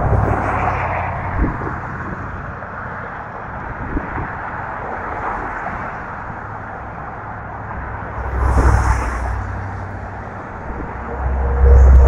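Road traffic passing with a steady tyre hiss, mixed with wind buffeting the microphone. The wind comes in loud, low rumbling gusts about nine seconds in and again near the end.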